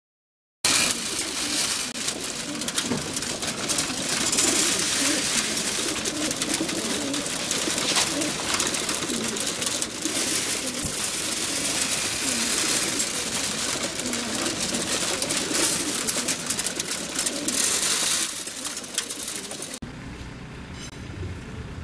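Racing pigeons cooing in a dense chorus inside the crates of a pigeon transport truck, over a constant bright hiss; the enclosed space makes it sound close and boxy. Near the end it cuts abruptly to a quieter outdoor sound.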